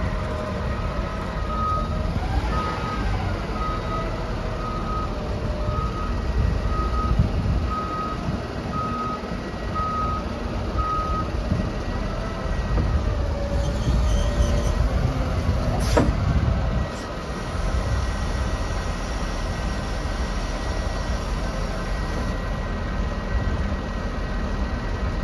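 Volvo L120H wheel loader's diesel engine running under work, with its reversing alarm beeping at an even pace, about one and a half beeps a second, for the first ten seconds or so. A single sharp click sounds about sixteen seconds in.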